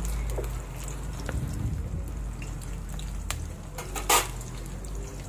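Sliced onions frying in hot oil in a wok: a steady sizzle scattered with small pops and crackles, and one louder pop about four seconds in.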